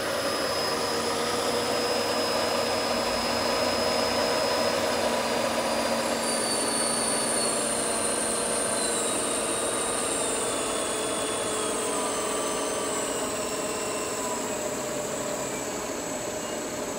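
Kent KTM-5VK milling machine's 5 HP variable-speed spindle running at high speed, its whine falling steadily in pitch from about six seconds in as the speed knob is turned down from about 3,600 rpm toward 2,000 rpm.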